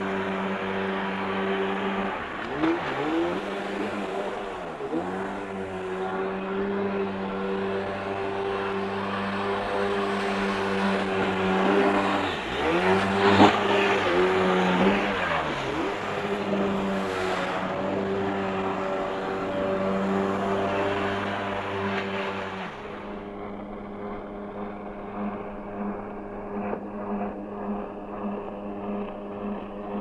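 Kawasaki stand-up jet ski engine running hard with water spray hissing around the hull. The engine pitch dips and climbs back twice as the throttle is eased and reopened. About 23 s in, the sound gives way to a quieter, duller jet ski engine drone.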